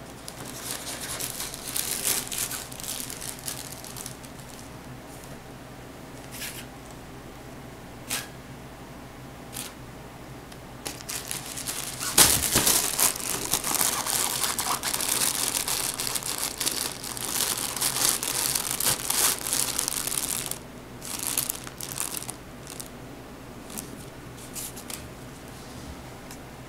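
A vinyl cat play tunnel crinkling and rustling as a hand shakes it and a cat plays in it. The noise comes in bursts, with a long loud stretch about midway and a few short crackles near the end.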